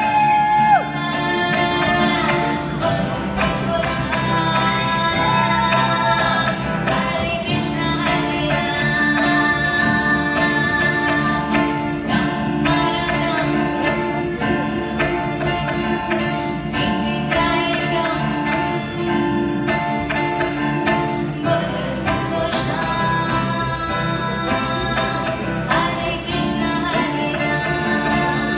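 Live band music with singing over guitars. A long held note ends about a second in, then the vocals carry on over the band.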